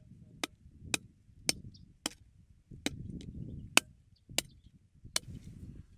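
A blade chopping: about nine sharp strikes, roughly two a second, unevenly spaced.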